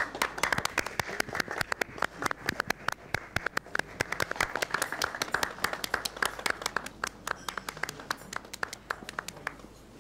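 A small audience applauding, many quick hand claps that thin out and stop near the end.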